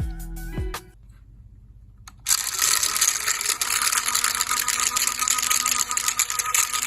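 Small electric motor of a Daiso mini washing machine starting up about two seconds in and running steadily, with a dense crackling, churning noise over a faint hum, as it mixes slime. A short stretch of background music ends just before.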